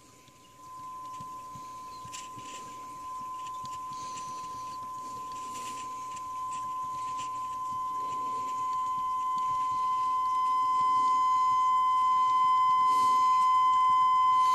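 Small speaker driven by a TL072 inverting op-amp amplifier, playing a steady sine-wave test tone from a signal generator. The tone jumps louder about half a second in, then grows steadily louder as the gain is turned up, and turns harsher near the end as overtones appear, with the amplifier near maximum volume.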